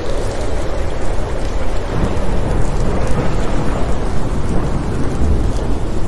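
Thunderstorm: steady rain with a deep, continuous rumble of thunder, no sharp cracks.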